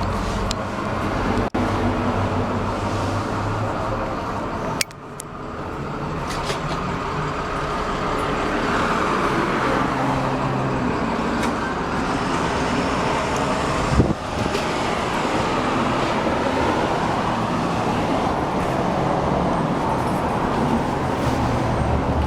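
Steady street traffic noise from passing vehicles, with a single sharp knock about fourteen seconds in.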